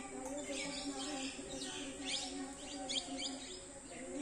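Small birds chirping, many short high calls coming quickly and overlapping, over a faint steady low drone.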